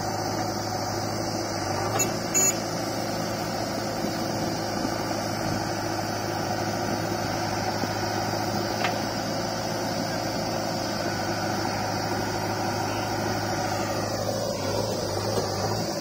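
Steady diesel engine running, from a JCB 3DX backhoe loader and a tractor standing side by side. A couple of brief clicks come about two seconds in.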